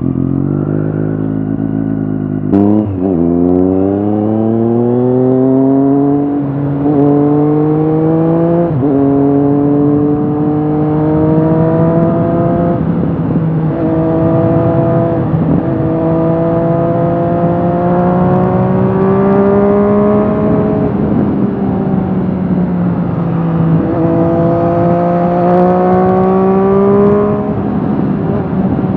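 2020 Triumph Street Triple RS 765 cc three-cylinder engine through an Akrapovic slip-on exhaust, heard from the rider's seat while riding. Its pitch climbs in each gear and drops sharply at each upshift, several times.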